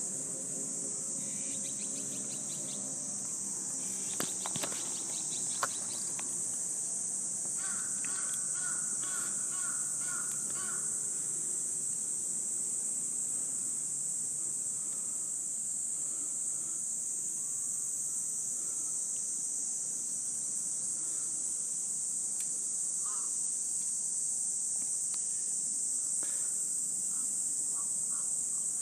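Insects singing in a continuous high-pitched drone that holds steady throughout. A few faint clicks come about four to six seconds in.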